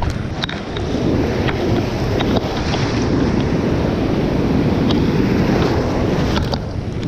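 Ocean surf washing in, with wind buffeting the microphone; the wash swells about a second in and eases near the end, with a few light clicks over it.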